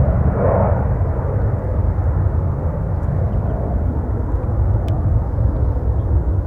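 Gulfstream G650 business jet's twin Rolls-Royce BR725 turbofans giving a loud, deep, steady rumble on departure, easing slightly.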